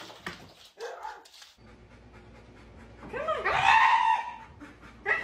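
A husky giving a long, wavering howl-like call that bends up and down in pitch, about three seconds in, and a short sharp call near the end.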